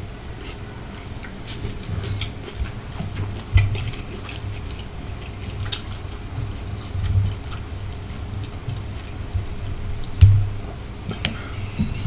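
Close-miked chewing of sautéed shrimp in sauce: wet mouth clicks and smacks over low thumps, with two louder bites about three and a half and ten seconds in.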